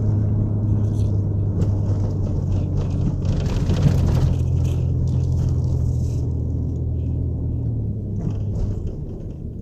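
Van engine running steadily while driving slowly, heard from inside the cabin as a low hum. A broader rushing noise joins about three seconds in and fades around six seconds.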